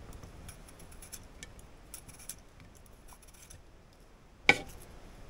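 Y-shaped vegetable peeler shaving thin slices off a raw peeled potato: faint repeated scraping strokes, with one sharp knock about four and a half seconds in.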